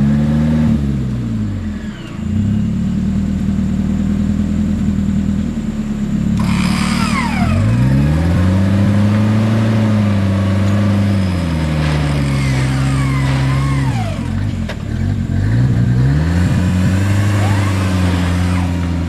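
Four-wheel-drive off-roader's engine revving hard under load, its pitch climbing and dropping in long swells a few seconds apart. From about six seconds in, a fainter high whine sweeps up and down over it.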